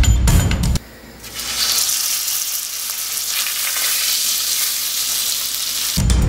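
Butter and slices of picanha steak sizzling in a frying pan. The sizzle builds about a second in and holds steady. A music track plays briefly at the start and comes back near the end.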